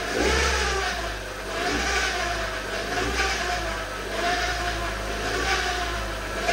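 A 2014 Nissan Juke automatic's engine given about five light blips of throttle, its pitch rising and falling with each. The rattling noise comes in as the revs rise, which the mechanic puts down to the automatic gearbox, by online reports typically short of oil.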